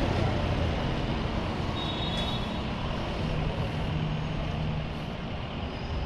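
Town street traffic: motor-vehicle engine and road noise, loudest at the start and fading as a vehicle passes, with a brief high tone about two seconds in.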